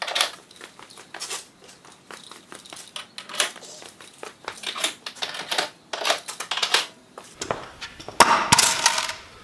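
Scattered light clicks, taps and rustles of hardware and small parts being handled, with footsteps on a concrete floor, building to a louder stretch of clattering about three quarters of the way through.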